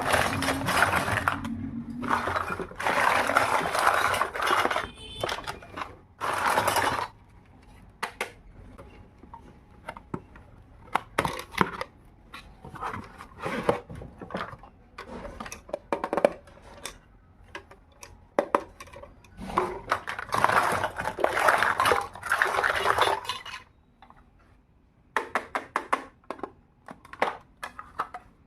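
Tiny miniature toy kitchen pieces being handled, with many small clicks and clinks as they are picked up and set down. Several longer stretches of rustling come from the packaging, the longest a few seconds before the end and another about three seconds long near the start.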